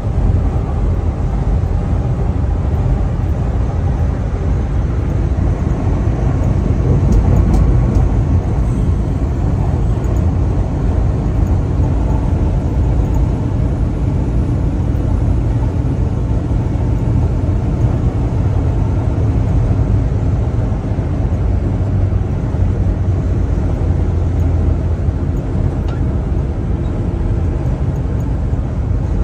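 Steady low drone of a semi truck cruising on the highway, engine and tyre noise heard from inside the cab.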